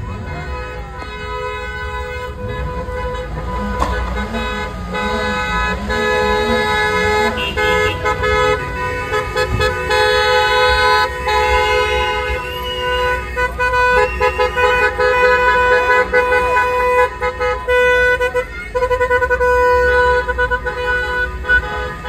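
Several car horns honking together in long, overlapping blasts, with voices underneath: a wedding car convoy setting off.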